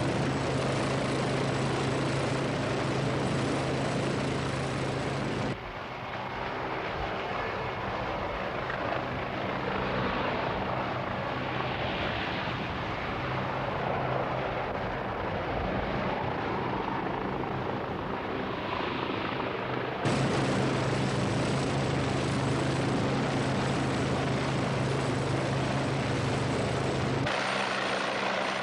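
Westland Wasp helicopter engine and rotor running steadily. The sound changes abruptly about five seconds in to a duller rushing noise with slow swells, then returns just after twenty seconds.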